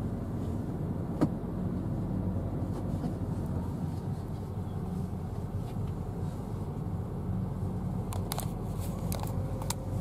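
Inside a car's cabin while driving slowly: a steady engine and tyre hum, with a sharp click about a second in and a few light clicks near the end.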